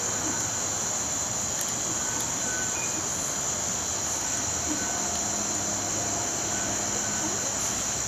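Steady, continuous chorus of night insects, crickets or katydids, as a high, unbroken shrill drone.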